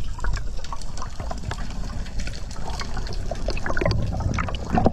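Water sloshing and trickling, with many small irregular clicks and pops over a low rumble.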